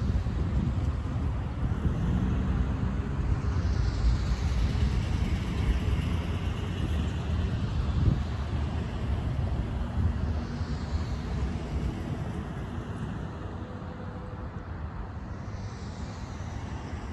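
BNSF freight train rolling past: a steady low rumble of wheels and cars that slowly fades, with a louder knock about eight seconds in.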